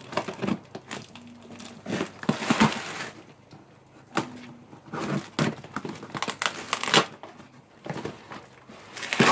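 A plastic shipping bag being torn open and crumpled by hand, in irregular bursts of crinkling and ripping.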